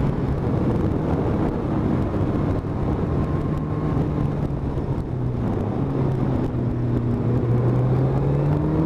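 Motorcycle engine running at road speed under wind and road noise. The engine note holds steady, dips about five seconds in, then climbs gradually toward the end as the bike pulls through the bends.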